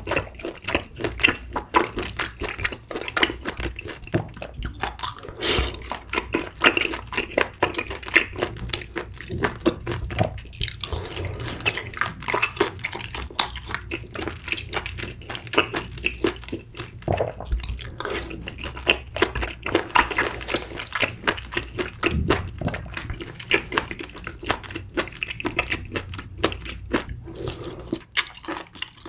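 Close-miked eating sounds: wet, sticky chewing and smacking in the mouth, a dense run of small clicks and squelches with occasional louder bites.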